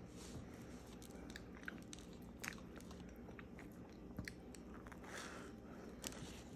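Person chewing and biting into a toasted grilled cheese sandwich, the crisp bread giving scattered crunches.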